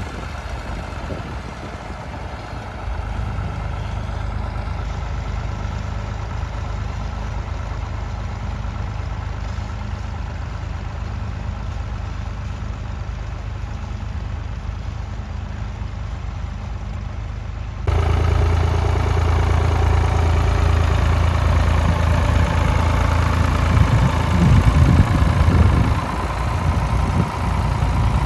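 Tractor engine running steadily at low revs. About two-thirds of the way through, the sound jumps to a louder, closer engine.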